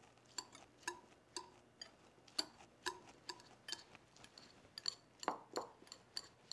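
Wire whisk mashing baked potato pulp in a glass bowl, its wires clicking against the glass about twice a second, with two duller knocks about five seconds in.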